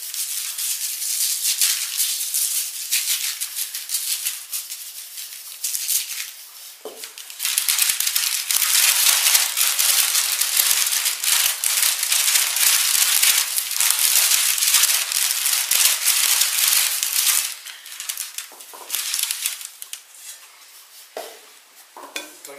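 Dry breadcrumbs poured from a jar onto baking paper, then shaken and slid across the paper as it is lifted and tilted to spread them: a grainy, rattling hiss with paper rustling. It comes in two spells, the second, about eight seconds in, louder and lasting about ten seconds.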